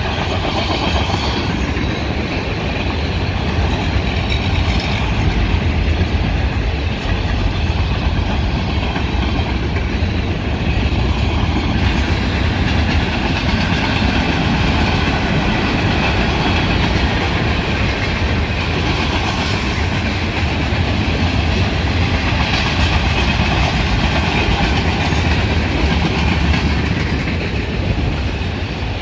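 Freight railcars of a long mixed freight train rolling past, their steel wheels on the rails making a steady, loud rumble.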